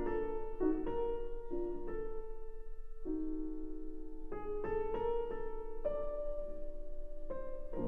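Background piano music: a slow run of struck notes that ring and fade, with a chord held about three seconds in.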